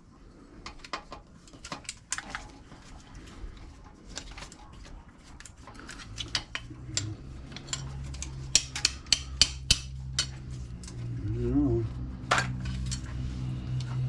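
Small metal scrap parts clicking and clinking as they are handled and dropped, with a quick run of sharp clicks past the middle. A low steady hum comes in about halfway through.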